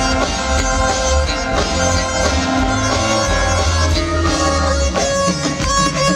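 A live band plays loudly: a guitar-like lead line over bass and drums. The heavy bass drops out about five seconds in.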